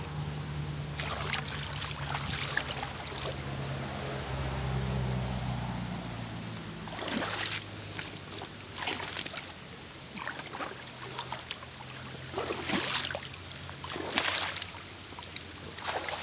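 Water sloshing and splashing in irregular bursts as someone wades through knee-deep floodwater. A low steady hum fills the first half.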